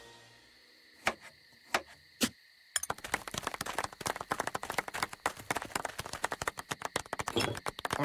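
Three separate sharp clicks, then a fast, irregular run of clicks and taps.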